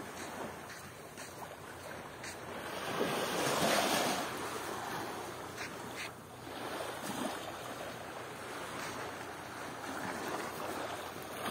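Steady rush of waves washing at the shore, mixed with wind on the microphone, swelling louder about three to four seconds in.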